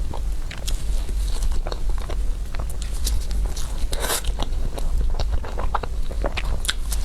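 Close-miked biting and chewing of a crepe roll dessert, a run of irregular small sharp clicks and crackles, over a steady low hum.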